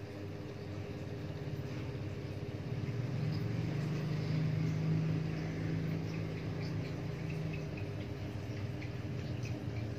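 Steady low mechanical hum, louder for a few seconds in the middle, with faint scattered ticks of bubbles: an aquarium air pump running and feeding a bubble stream.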